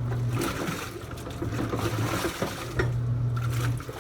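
Portable washing machine agitating a load: its motor hums in spells of about a second with short breaks between, while water and clothes slosh in the tub.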